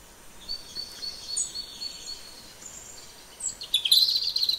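Small birds singing: a thin, high trill of repeated chirps, then a louder run of quick chirps and twitters near the end.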